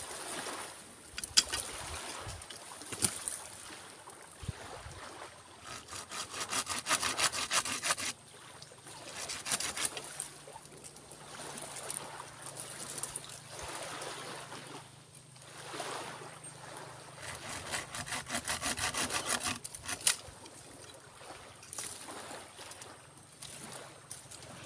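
Hand saw cutting through santigi wood in spells of rapid back-and-forth strokes, loudest about six seconds in and again near eighteen seconds, with rough scraping and a few single knocks between, as the tree is cut free while being dug up.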